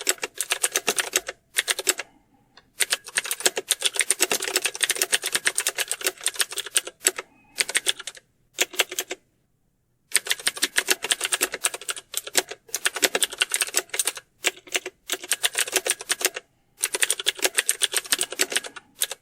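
Rapid keyboard typing: fast, dense keystrokes in long runs, broken by a few short pauses, the longest about a second around the middle.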